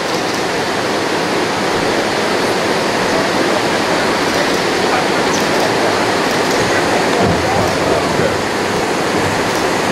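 River water pouring over a weir and churning through the whitewater chute below, a steady, even rush.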